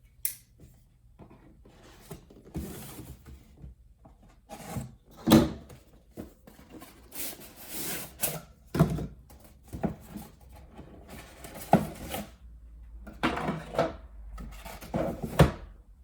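A bicycle saddle's box and packaging being handled and opened: irregular knocks, scrapes and rustling, with a longer rustle in the middle and several sharper knocks.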